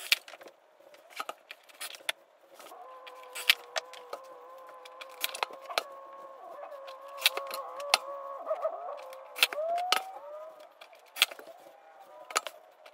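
Cordless Ryobi impact driver running slowly for several seconds as it drives a drawer-knob screw, its whine wavering and rising just before it stops. Scattered light clicks and knocks of the knob hardware and fabric bins being handled come before and after.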